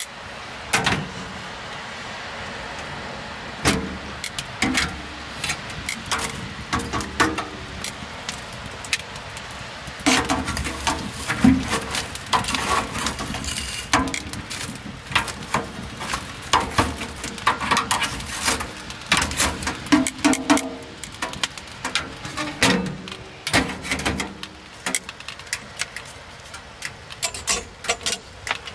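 Firewood crackling and popping as it burns inside a POMOLY Dweller Max 2.0 wood stove, many sharp irregular pops over a steady low hiss. The pops come thicker from about a third of the way in.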